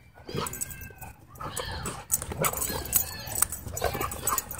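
Husky and other dogs vocalizing as they play-wrestle: a busy run of short whines and yips that rise and fall in pitch, overlapping one another.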